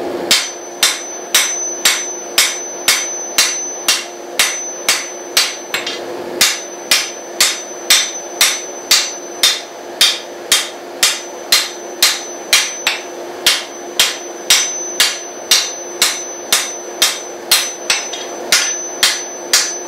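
Hand hammer striking a steel sword blade on an anvil, forging bevels into the bottom half of the blade. The blows are regular, about two a second, each with a high metallic ring, over a steady low hum.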